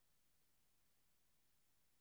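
Near silence: faint steady background hiss, with no distinct sound.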